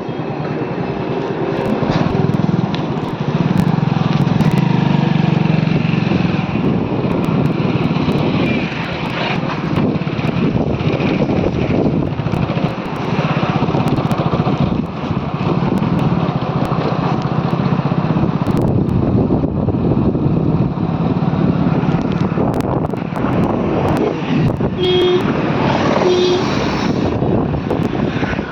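Steady running noise of a motor vehicle, with two short pitched tones near the end.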